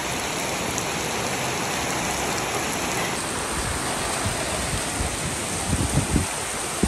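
Heavy rain falling steadily on a wet street, with a few low thumps about six seconds in.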